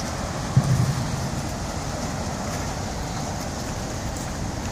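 Steady background noise of a city street, with a short low thump about half a second in.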